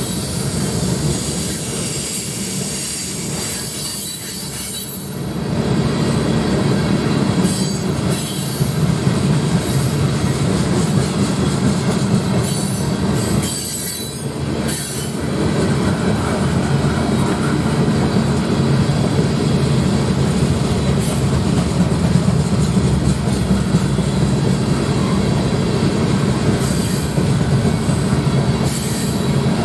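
Freight train of covered hopper cars passing close at speed: steady rumble and rattle of steel wheels on the rails.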